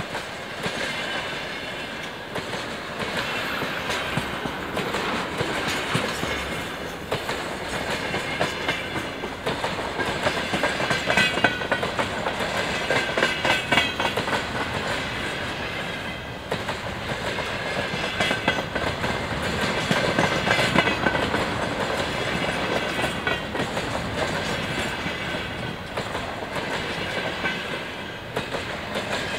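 Empty container flatcars rolling past at about 38 km/h, wheels clattering over the rail joints with a steady rattle of the unloaded wagons. A high whine from the wheels comes and goes as they pass.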